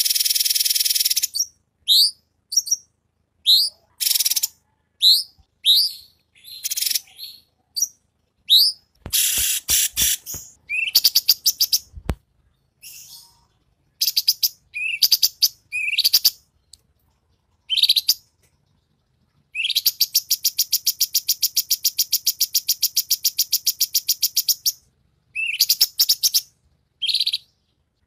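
Recorded songs of Indonesian cage songbirds, a masteran tutor mix of cucak cungkok, cililin and kapas tembak (katem). Many short rising whistled notes and quick chip series, then about twenty seconds in a long rapid trill that lasts around five seconds. A few dull thumps sound around ten to twelve seconds in.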